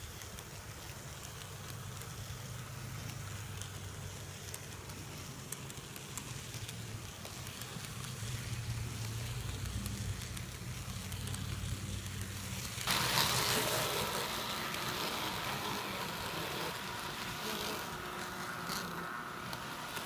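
HO-scale model train running on its track, the locomotive's small electric motor giving a low, steady hum. About 13 seconds in, the sound turns abruptly louder and brighter.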